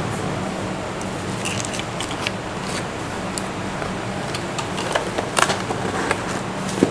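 Cardboard pizza box being handled and its lid closed: a few light taps and clicks of the cardboard, over a steady background noise with a low hum.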